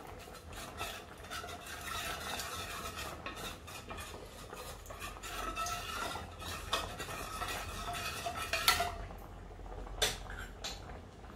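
Cornstarch and water being stirred into a slurry in an enamel bowl, the utensil scraping and clinking against the bowl, with a few sharper knocks near the end.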